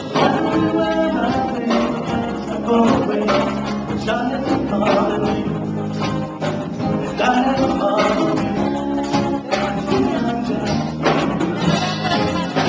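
Live band music: a guitar-driven song with a voice singing over it.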